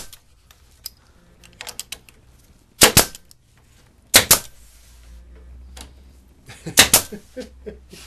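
Pneumatic brad nailer firing brads into a redwood edge strip: three pairs of sharp snaps about a second or two apart, with a few lighter clicks between.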